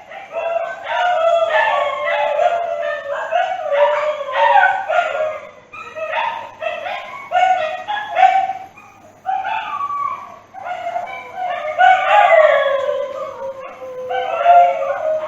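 Dog howling mournfully: a long string of wavering cries that rise and fall in pitch, broken by short breaths and yips.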